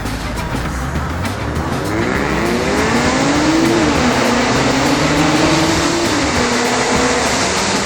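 Audi A7 3.0 TFSI V6 with a stage 2 tune and full stainless exhaust accelerating hard. From about two seconds in the engine note climbs through the revs, dropping back twice at upshifts.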